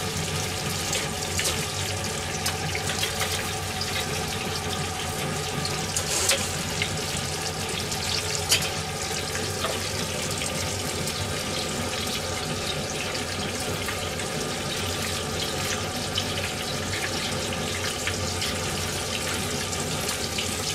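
Food deep-frying in hot oil: a steady sizzle with scattered sharp pops.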